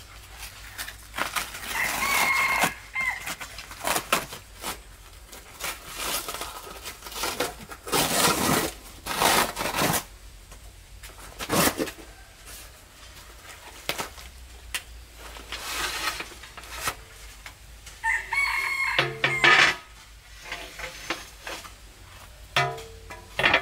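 A rooster crows twice, about two seconds in and again near the end. In between, cardboard packaging rustles and tears, and floor tiles are handled.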